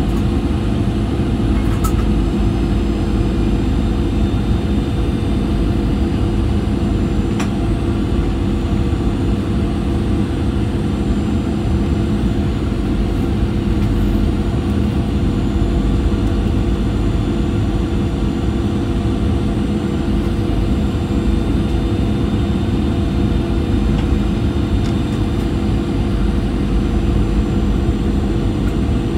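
Steady cabin roar inside a Boeing 737-800 descending on approach: its CFM56-7B engines and the airflow over the fuselage make a deep, even rumble with a constant low hum.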